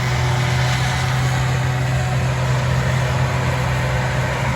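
A diesel engine on harvest equipment, a combine or grain truck, running steadily. It makes an unchanging low hum throughout.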